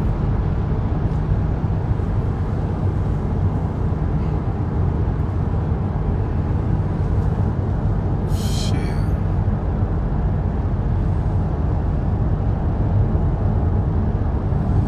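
Steady low rumble inside a car's cabin, with a brief hiss about eight seconds in.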